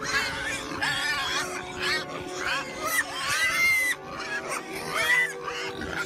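A group of pigs squealing, several high arching squeals one after another, over background music.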